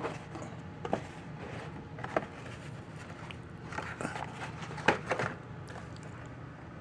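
Light handling noises from a carburetor rebuild kit and its paperwork: a few scattered clicks and rustles over a steady low hum.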